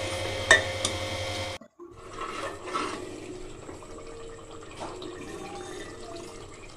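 Thick masala paste of ground onion, tomato and garlic sizzling and bubbling in hot oil in a pressure cooker while a metal ladle stirs it, with a sharp clink of ladle against the pot about half a second in. The sound breaks off briefly after about a second and a half, then the bubbling goes on steadily.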